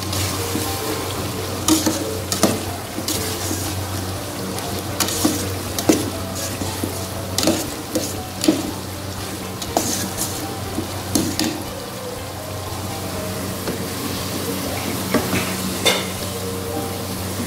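A metal spoon stirring a steel pot of simmering potato-and-pea curry, with frequent sharp clicks and scrapes of the spoon against the pot and a sizzle from the food. A low steady hum runs underneath.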